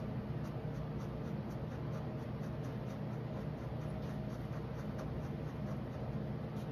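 Quick, short repeated strokes of a black pen scratching on drawing paper as small squares are filled in black, over a steady low hum.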